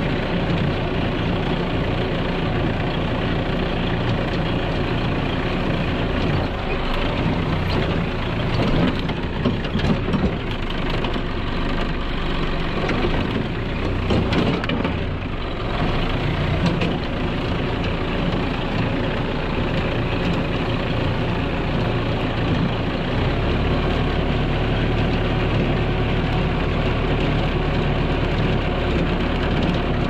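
Small compact farm tractor's engine running steadily as it is driven through tall grass, its note shifting a little partway through.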